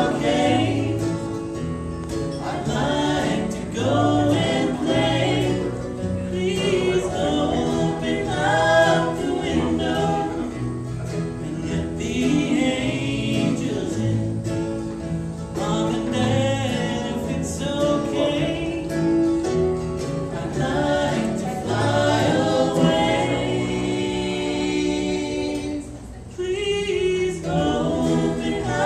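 Bluegrass band playing live, with acoustic guitar, mandolin, fiddle and banjo, while several voices sing close harmony.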